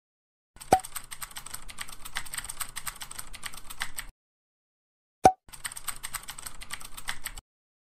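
Computer-keyboard typing sound effect for on-screen text being typed out: two runs of rapid key clicks, the first about three and a half seconds long and the second about two, each opening with a short, loud pop.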